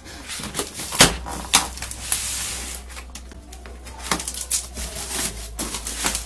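Scissors slitting the packing tape on a cardboard shipping box, with sharp snips and clicks and the rustle and scrape of tape and cardboard flaps being pulled open.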